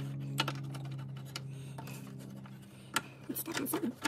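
Light clicks and ticks of bulb sockets and cloth-covered wiring being handled and pushed into the back of a Thunderbird's sheet-metal dash, with a steady low hum in the background that fades out about three seconds in.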